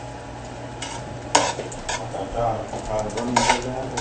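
A metal utensil stirring and scraping in a frying pan over food sizzling, with sharp clanks against the pan about a third of the way in and again near the end.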